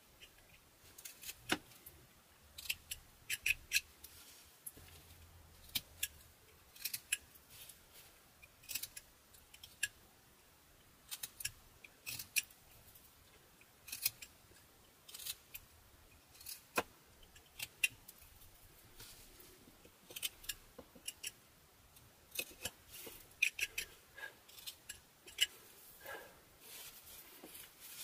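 Carving knife, a Northbay Forge whittling knife, slicing small chips off a butternut wood carving held in the hand. It makes a series of short, crisp cuts at an irregular pace, some coming in quick clusters.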